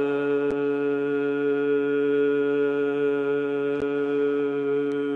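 A man's singing voice holding one long note at a steady pitch on a single breath, stopping near the end: a singer's breath-control (saah) exercise.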